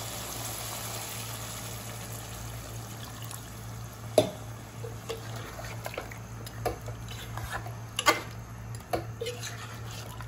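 Water poured from a glass into a pot of chicken curry, a steady pour for about four seconds. Then a spoon stirs the curry, with scattered knocks and scrapes against the pot.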